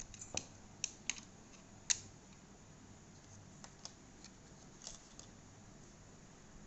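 Plastic clicks and snaps as the battery cover is pried off the underside of a Dell WM118 wireless mouse. There is a quick run of clicks, the sharpest about two seconds in, then a few fainter ticks.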